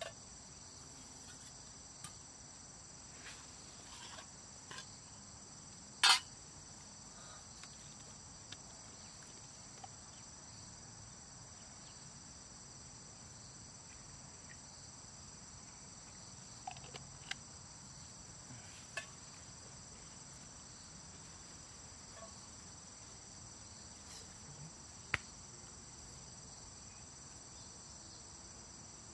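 A steady, high-pitched chorus of insects shrilling, with a few scattered knocks and clicks on top, the loudest about six seconds in.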